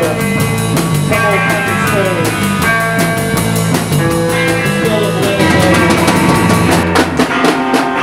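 Live rock band playing: electric guitars over a drum kit, with a quick run of drum hits near the end.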